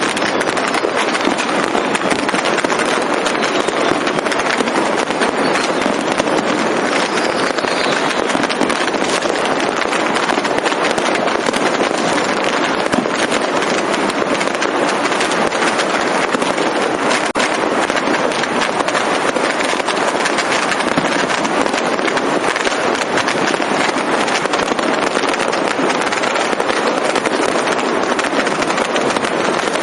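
Firecrackers and fireworks going off in a dense, unbroken barrage of crackles and bangs that never lets up.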